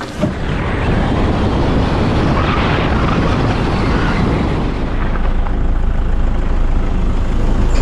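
A moving vehicle: steady engine and road noise with a heavy low rumble, like wind buffeting the microphone.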